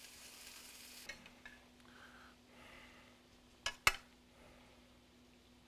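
Metal tongs clinking twice against a stainless steel pan while braised cabbage is served, a little under four seconds in, over a faint steady hum.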